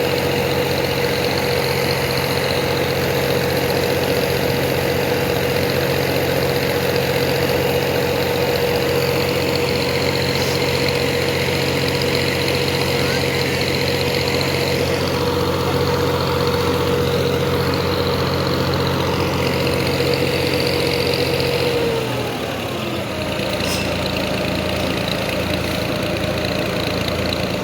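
TMR feed mixer machine running steadily, an engine hum with a high steady whine. About 22 seconds in, it slows and the whine glides down in pitch, then runs on at a lower, quieter speed.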